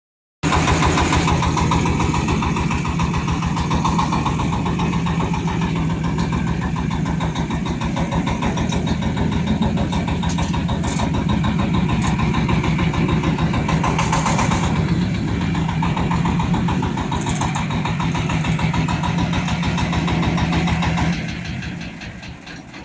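Diesel engine of a mini wheel loader running steadily with a fast, even pulse, plus a few short clicks midway; near the end the engine sound dies away.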